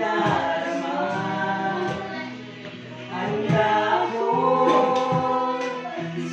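A song playing: a voice singing long held notes over instrumental accompaniment.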